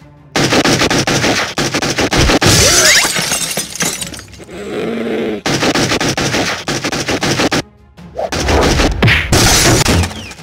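Loud background music with cartoon fight sound effects: whacks and crashes. It starts about half a second in, drops away briefly near 8 s, then comes back.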